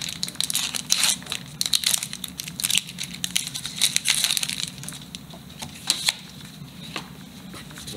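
Crinkly foil wrapper of a Pokémon trading-card booster pack being crinkled and torn open by hand, a dense crackling that thins out about six seconds in.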